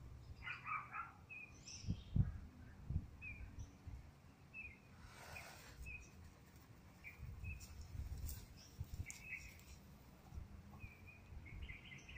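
Small birds chirping now and then in short high calls, over a low rumble with dull thumps, the loudest about two seconds in.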